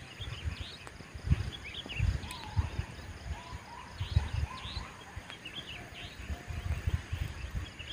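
Several birds chirping and calling, many quick high chirps mixed with a few short whistled notes, over irregular low rumbles of wind on the microphone.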